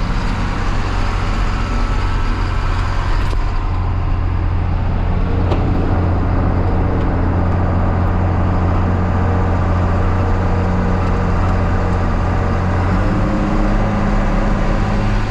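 Farm tractor's diesel engine running steadily while pulling a grain cart, a loud low drone; the engine note changes about 13 seconds in.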